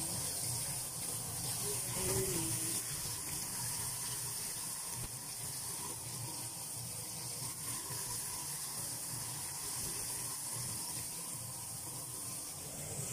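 Fish fillets coated in flour deep-frying in a pan of hot oil: a steady sizzle.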